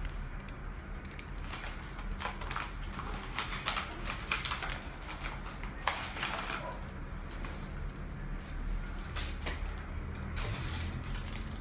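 Chocolate bar wrapper crinkling and rustling as it is handled and opened, in irregular crackles.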